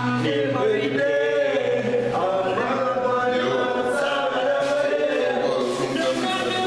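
Vocal music with several voices singing together, continuously and loudly.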